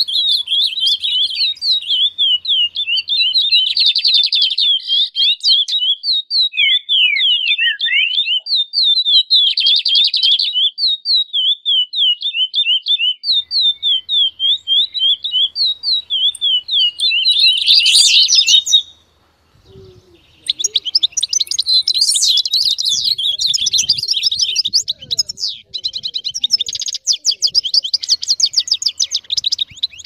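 Recorded songbird song: a long, fast run of repeated high, down-slurred chirps, then a short break about two-thirds of the way through, followed by a denser, quicker chattering song.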